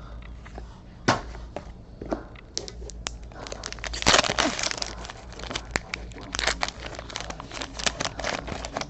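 Foil wrapper of a trading card pack crinkling and tearing, loudest in a burst about four seconds in, among many small clicks and rustles of cards being handled.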